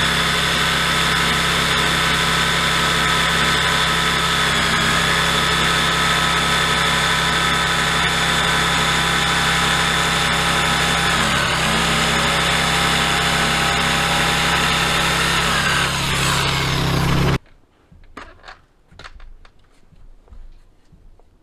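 A small engine running steadily at high speed under load, its pitch dipping briefly twice, then cutting off abruptly about three-quarters of the way through. Faint clicks and knocks follow.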